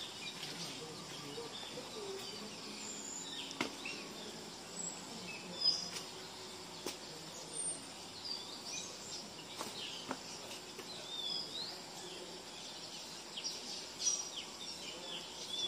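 Faint outdoor ambience: small birds chirping now and then over a steady background hiss, with a few soft clicks.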